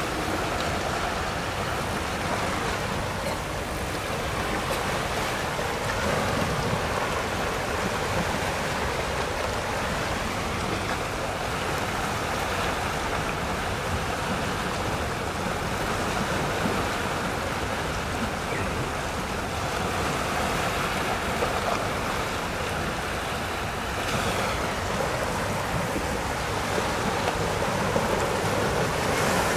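Steady seaside wash of small waves, with wind buffeting the microphone; the water noise grows a little louder and brighter near the end.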